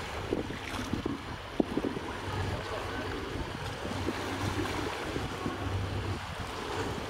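Wind rumbling on the microphone over a steady waterside background noise, with one brief sharp knock about one and a half seconds in.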